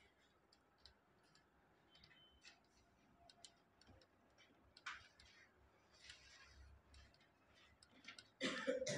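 Near silence, with a few faint ticks and soft swishes of a cloth duster wiping a whiteboard. Near the end, a short vocal sound.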